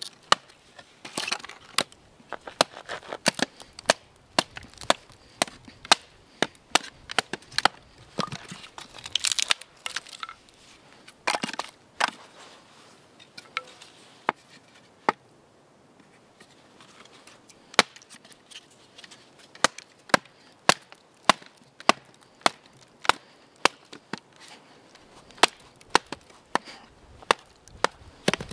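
Batoning firewood: a short wooden log strikes the spine of a fixed-blade knife set in a piece of wood, making sharp wooden knocks about one or two a second as the wood splits. The knocking stops for a few seconds near the middle, then starts again.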